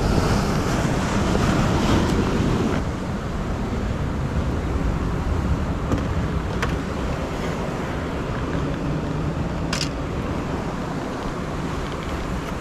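Wind buffeting the microphone over the steady wash of ocean surf, stronger for the first few seconds, with a few sharp clicks near the middle and later on.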